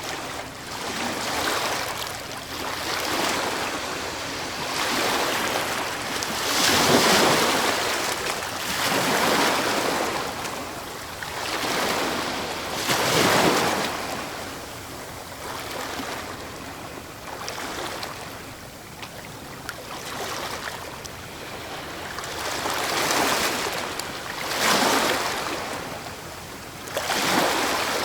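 Sea waves breaking on the shore, one surge of rushing surf after another every few seconds, each swelling up and then washing back.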